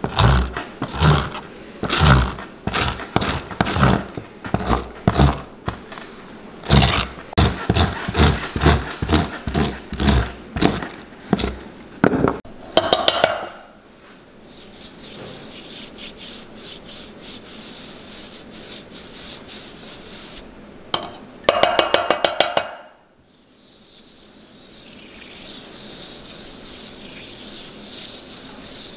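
A wire scratch brush scrapes a PVC boot sole in quick repeated strokes, about two a second, roughing the surface so the glue will hold. About halfway through this gives way to quieter, softer brushing as glue is brushed onto the sole, with a short louder scratchy burst about three-quarters of the way in.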